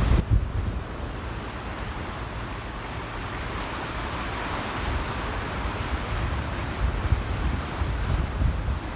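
Storm surf from an approaching typhoon washing in as a steady hiss, with wind gusts buffeting the microphone in low rumbles.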